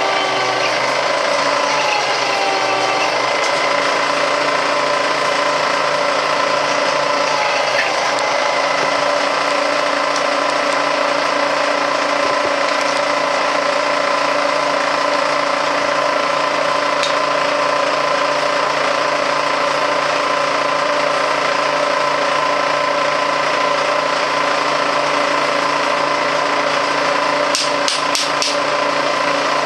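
Milling machine cutting aluminum: a steady machine hum with several held tones that shift in pitch for a moment about a second in. Near the end there is a quick cluster of sharp clicks.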